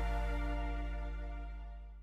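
Background music with sustained notes over a deep bass, fading out to silence.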